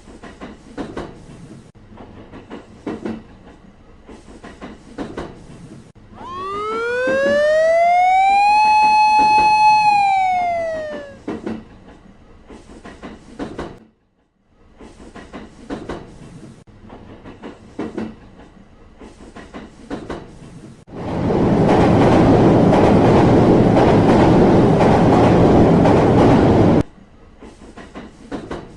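Animated railroad-crossing sound effects: a crossing bell strikes over and over throughout. About six seconds in, a train horn sounds for about five seconds, sliding up in pitch, holding, then sliding down. Later a train rushes past for about six seconds and cuts off suddenly.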